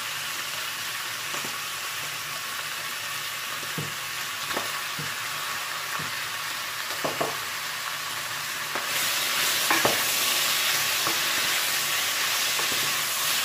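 Pork, carrots and potatoes sizzling in a pot on the stove, with occasional light knocks of utensils. The sizzle grows louder about two-thirds of the way through, as the pot is stirred with a wooden spoon.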